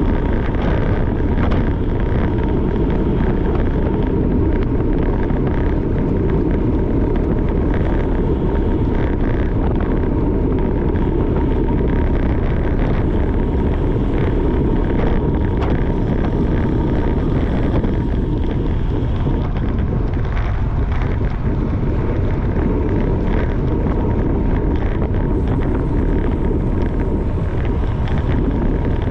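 Steady wind rush over the microphone of a camera riding on a racing bicycle: a loud, continuous low rumble with a faint steady high whine running through it.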